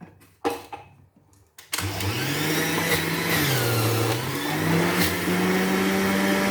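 An electric vegetable juicer, Indian-made, is switched on after a few light knocks and runs its motor while juicing a small red onion. Its pitch sags around the middle, then settles higher and steady.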